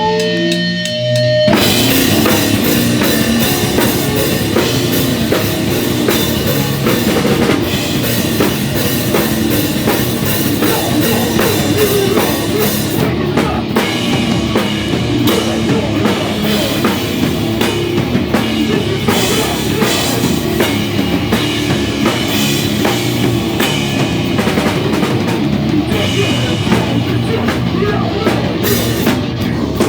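Live rock band playing a song: an electric guitar alone at first, then the drum kit and full band come in about a second and a half in and play on steadily.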